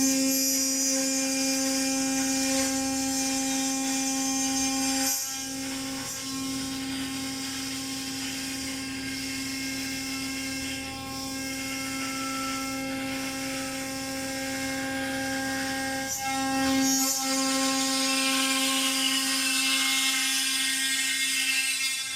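Emmegi CNC machining centre's spindle running at speed, cutting aluminium profile: a steady high whine over a hiss, with short dips about five seconds in and again near the end.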